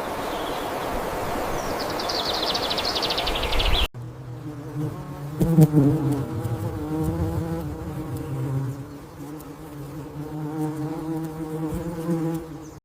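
A flying insect buzzing close by, a steady low hum that wavers slightly in pitch. It follows a sudden cut about four seconds in from a steady rushing outdoor noise, in which a short rasping sound falls in pitch just before the cut.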